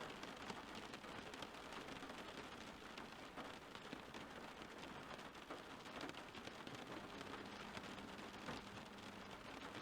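Faint, steady rain falling, an even hiss flecked with many small drop hits.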